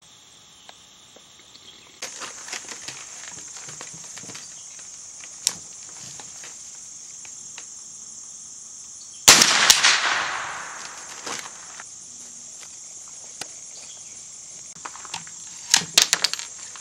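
Insects buzzing steadily, with a single .22 LR shot from a Smith & Wesson M&P 15-22 rimfire rifle about nine seconds in, its crack echoing and fading over a second or so. Near the end, a quick run of several sharp cracks.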